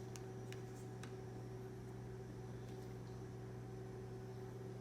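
Room tone: a low steady hum under a faint hiss, with a few faint clicks in the first second.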